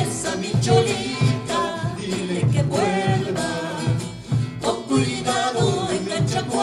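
Live Andean folk song: several voices singing together over strummed acoustic guitars and a small strummed stringed instrument, with a large rope-tensioned drum beaten with a stick in a steady beat.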